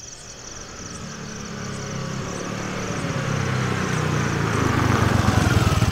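Motorbike engine running as the bike approaches, getting steadily louder. A steady high chirring goes on in the background.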